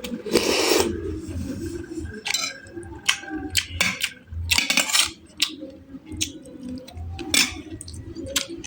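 Eating sounds: chewing, with scattered sharp clinks of cutlery against a dish and a couple of short noisy bursts.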